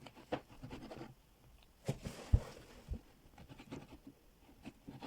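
A spoon stirring glue and shaving foam in a container: soft squelching and scraping, with a sharp knock a little past two seconds in.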